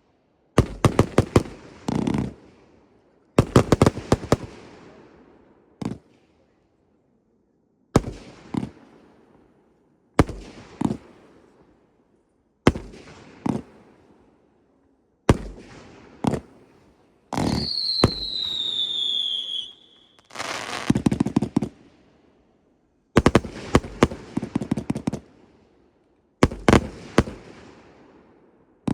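Firework cakes firing: volleys of sharp bangs and quick clusters of cracks every two to three seconds, each fading out. Midway a whistle effect sounds for about two seconds, sliding down in pitch, followed by a stretch of dense crackling.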